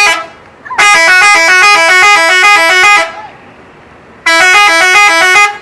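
Bus telolet horn, a set of tuned air horns, playing its multi-note melody. The notes step up and down in a long burst of about two seconds, then a shorter burst over a second later.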